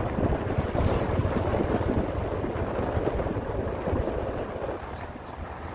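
Diesel engine of a Shacman dump truck running close by, mixed with wind rumbling on the microphone. The sound drops a little near the end.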